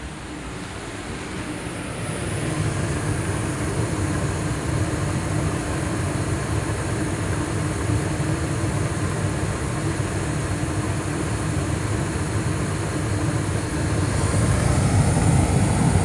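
Carrier Infinity 80 (58CVA) two-stage gas furnace running in high-stage heat, its burners firing and its variable-speed ECM blower pushing air, a steady rumble with a faint hum. It swells over the first few seconds, then holds steady.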